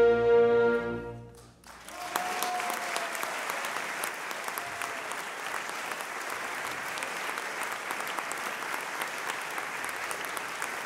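An orchestra holds its final chord and cuts it off about a second and a half in; the audience then breaks into steady applause that carries on to the end.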